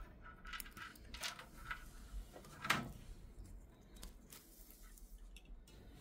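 Faint clicks and rustles of computer fan cables and their plastic connectors being handled, with one louder knock about halfway through.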